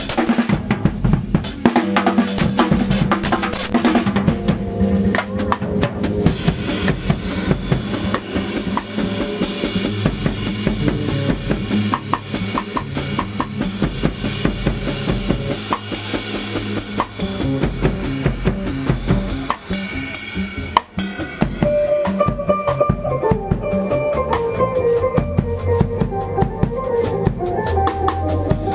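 Live jazz jam in 9/8, led by a drum kit played busily with sticks on drums and cymbals over bass. About twenty seconds in, the drumming thins and a pitched melody line comes forward.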